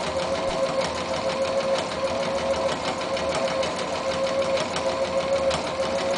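Domestic electric sewing machine running steadily through fabric on an over-edge stitch: a continuous motor whine with a rapid, even ticking of the needle strokes.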